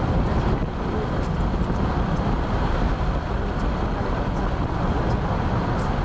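Steady road noise inside a moving car: the engine and tyres make a constant low rumble.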